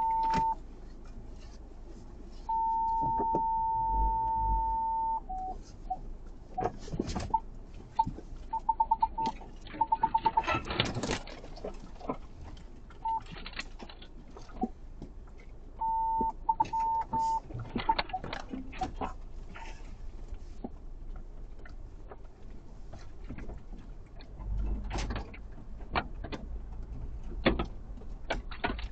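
Electronic beeping at one steady pitch: a long tone of about three seconds, then several runs of short rapid beeps, with scattered clicks and knocks in between.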